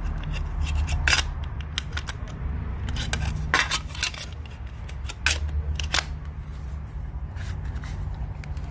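Handling noise: a scatter of sharp plastic clicks and knocks as the plastic valve body of a Moen Flo smart water monitor is turned over and worked in the hands, over a steady low hum.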